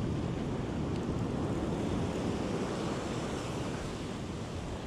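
Ocean surf breaking and washing up a sandy beach, a steady rushing noise, with wind buffeting the microphone.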